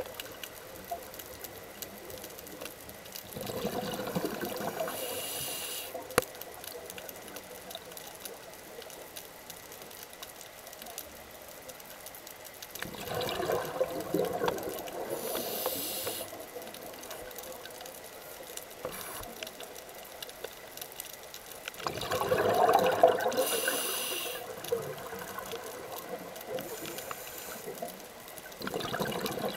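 Scuba diver breathing through a regulator underwater: a burst of exhaled bubbles about every nine seconds, each followed by a short high hiss of the next inhalation. The bubbling is loudest about two-thirds of the way in, and a fourth exhalation starts near the end.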